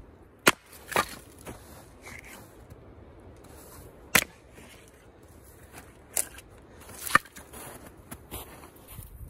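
Splitting maul striking a round of firewood on a chopping stump: three hard wooden cracks about three seconds apart, with lighter knocks between, as the log is split.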